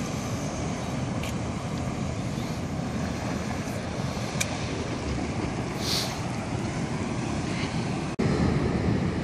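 Wind buffeting the microphone over steady sea and harbour water noise, with a few faint light clicks. Near the end it cuts abruptly to a louder stretch of wind rumble.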